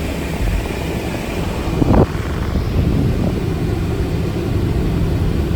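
Car engine running with the air conditioning on full blast: a steady low rumble with blower noise, and a short louder bump about two seconds in.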